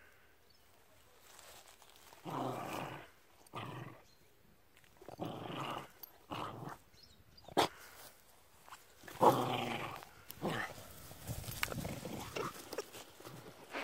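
Dog growling in short bursts, about six of them, each under a second, while it chews a toy ball. There is a sharp click about halfway through.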